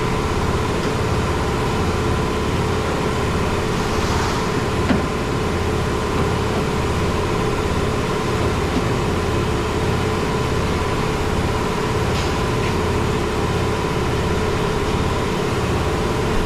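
Steady machine noise, a constant hum with a throbbing low pulse, with a single sharp click about five seconds in.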